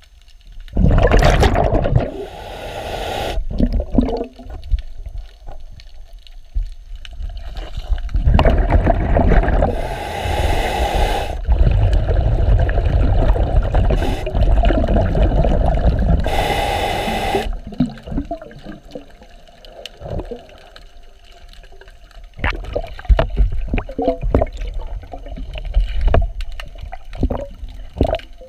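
A diver's breathing heard underwater: exhaled air rushing out of the regulator as bubbles in long bursts, with three short hisses from the regulator as air is drawn in. After the long bursts stop, scattered light knocks and scrapes of hands or gear against the hull.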